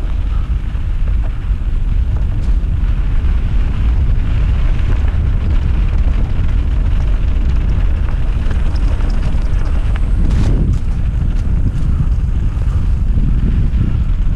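Wind buffeting the microphone over a steady low rumble while riding a mountain bike on a dirt trail, with a few short knocks about ten seconds in.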